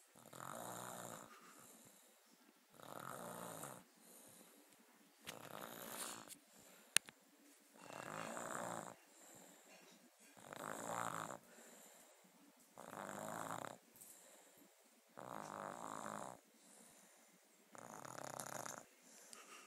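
Snoring during sleep, a steady rhythm of eight snores, each about a second long and about two and a half seconds apart, with quiet breathing between. A single sharp click about seven seconds in.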